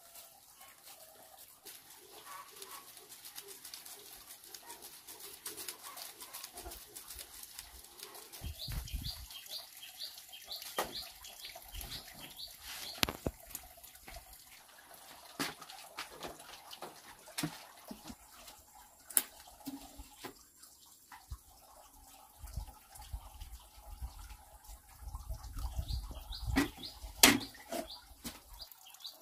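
A bird calling in runs of short, quick, high chirps, twice, among scattered knocks and clatters of things being handled.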